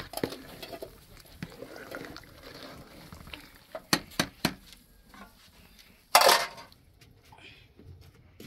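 A metal ladle clinks against a steel cooking pot as boiling rice is skimmed and stirred. There are four quick sharp clinks about four seconds in. Just after six seconds comes a short, louder rush of noise.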